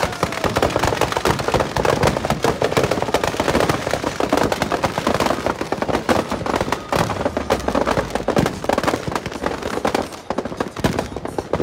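Firecrackers packed inside a burning Ravana effigy going off in a rapid, continuous crackle of bangs, easing off a little near the end.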